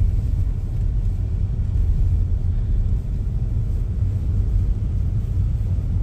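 Steady low rumble of a Chevrolet car driving, engine and road noise heard from inside the cabin.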